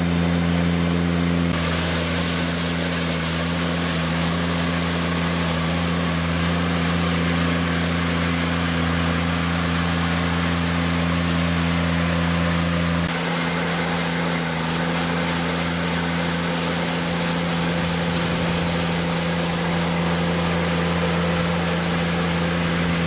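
Polaris Brutus diesel utility vehicle's engine running at a steady high speed under load, driving a front-mounted PTO rotary broom that sweeps snow, with the brush's steady rush over it. The sound shifts abruptly twice, once early on and once about halfway through.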